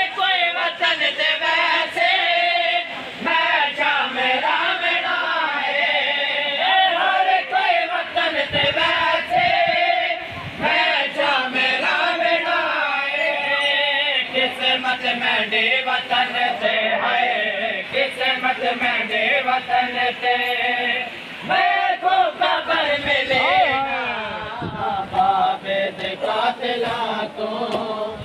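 Group of men chanting a Saraiki noha (mourning lament) together, many voices singing the lines in unison.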